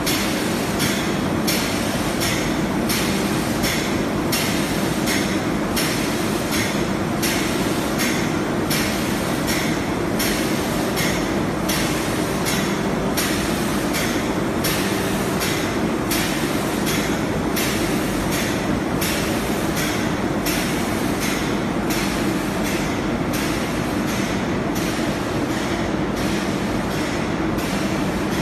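Computer-controlled filament winding machine running: a steady mechanical hum with a regular clicking about twice a second.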